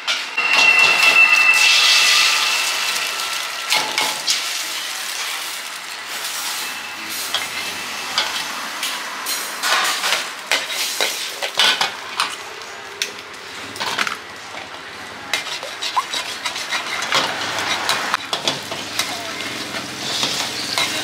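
Eggs frying in hot oil in a steel wok, with sizzling that is loudest in the first few seconds. A steel ladle and spatula clink and scrape against the wok many times as the eggs are spread and stirred.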